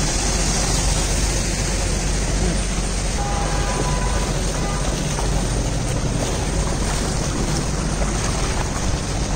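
Steady rushing noise of floodwater across a flooded street, with no separate splashes standing out.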